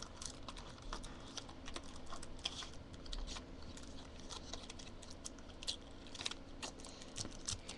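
Light, irregular clicks and taps of a deck of playing cards being handled and tucked into its cardboard box.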